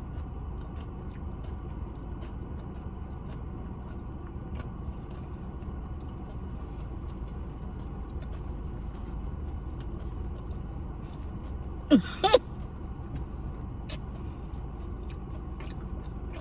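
A person eating over a steady low rumble, with faint clicks of chewing. About twelve seconds in comes a short hummed "mm" that slides in pitch, and a sharp click follows soon after.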